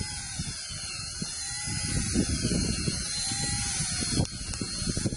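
18-volt DeWalt cordless drill on its slowest setting turning a spiral soil auger into sandy soil in short up-and-down strokes. The motor's whine rises and falls a few times over a low gritty rumble, with a click about four seconds in.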